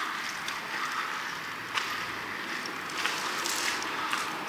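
Steady outdoor town ambience: an even hiss with a few faint clicks.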